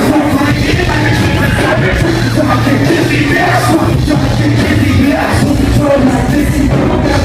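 Live concert music played loud through a PA, with a heavy bass and shouted vocals over it.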